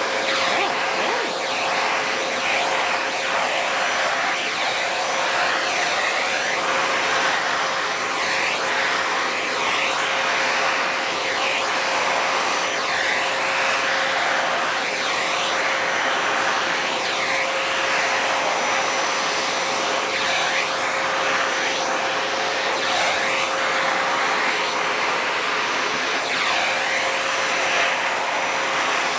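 Vacuum cleaner running steadily with a constant whine, its airflow note dipping and recovering about every two seconds.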